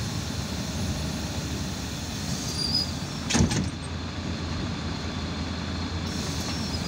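Cabin sound of an Irisbus Citelis 12 m city bus running: a steady low rumble from the drivetrain and road, with a single sharp knock about three and a half seconds in.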